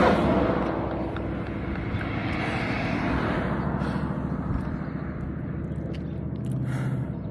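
Street traffic: the steady rumble of passing cars, loudest at the start and easing off over the first couple of seconds as a vehicle goes by.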